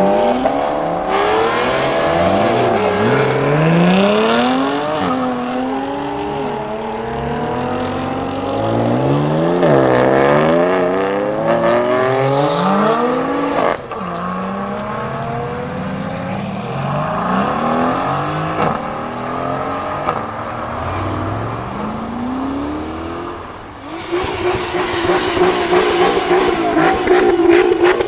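High-performance car engines revving and accelerating hard, their pitch climbing and dropping back again and again through gear changes. About 24 seconds in, a louder engine holds a steady note, with a quick run of sharp exhaust cracks near the end.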